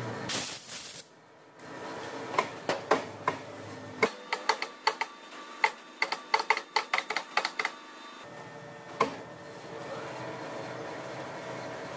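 Metal lathe running with a steady hum, cutting a spiral groove in a steel bar. A brief loud hiss comes just under a second in. From about two seconds in there is a run of sharp, irregular clicks, about three or four a second, which are the loudest sounds, and one more click comes near the end.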